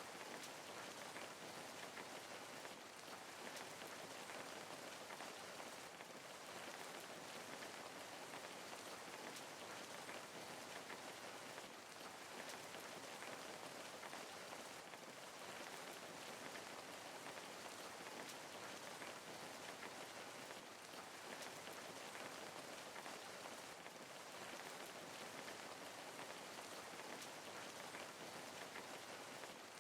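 Steady rain falling, an even hiss of many fine drops with no thunder or other sounds standing out.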